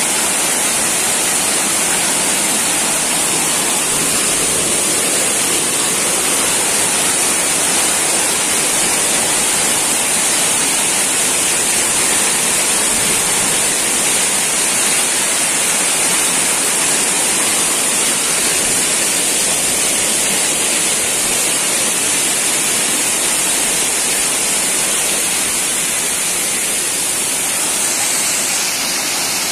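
Waterfall pouring down rock ledges into a shallow rocky stream: a loud, steady rush of falling water.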